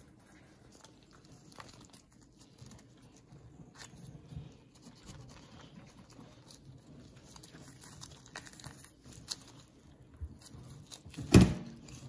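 Ripe jackfruit being pulled apart by a gloved hand and cut with a knife: faint soft tearing and small scattered clicks as bulbs come free from the fibrous flesh. One sharp knock near the end is the loudest sound.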